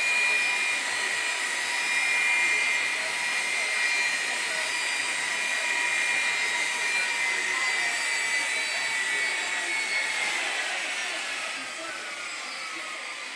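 Jet engines of a parked Boeing 757 whining steadily over a hiss, heard through terminal glass. About ten seconds in, the whine begins to fall in pitch and the sound fades: the engines are spooling down after shutdown at the gate.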